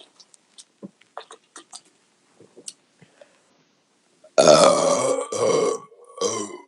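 A woman burping out beer gas: faint clicks, then about four seconds in a loud, long belch with a short break in it, followed by a shorter belch near the end.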